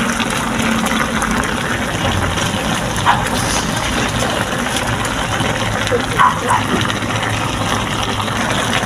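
Chopped litson pork cooking in a wok in its vinegar-and-fish-sauce liquid, a steady bubbling hiss. A few short sharp sounds come through it about three seconds in and twice around six seconds.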